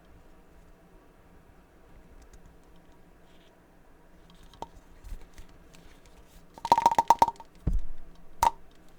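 Hands handling a vinyl Funko Pop figure and its packaging: faint taps, then a quick run of sharp clicks and knocks, a low thump, and one last click near the end.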